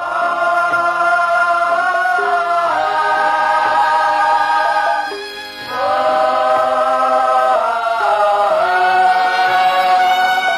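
Music with choral singing: voices holding long notes in phrases a few seconds long, with a short break about five seconds in.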